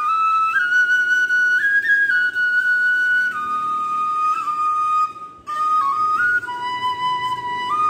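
Background music: a high melody of long held notes stepping between pitches, with a brief break about five seconds in.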